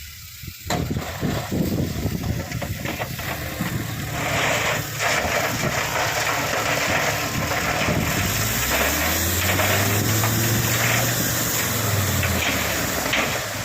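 Heavy diesel engine running under a steady hiss; about eight seconds in, a low engine drone swells, holds for about four seconds and then drops away.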